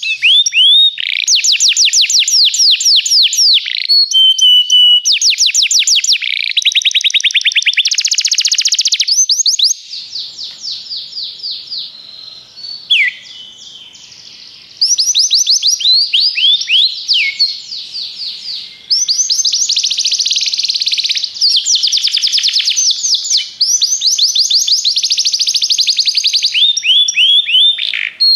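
Belgian canary singing: long runs of rapid, fast-repeated trills and rolls, high-pitched, with a softer stretch about ten seconds in before the full-voiced song resumes.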